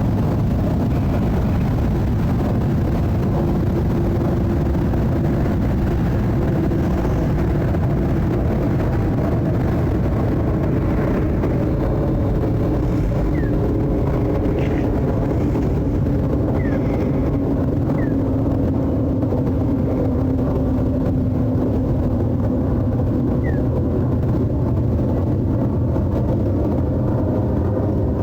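Jet airliner passing overhead on its climb-out: a steady loud engine rumble with a tone that slowly falls in pitch as it goes by.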